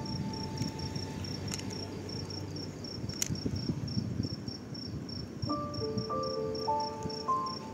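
A cricket chirping steadily, about four to five short high chirps a second, over the soft irregular chewing of a kitten eating raw meat. Gentle background music notes come in about five and a half seconds in.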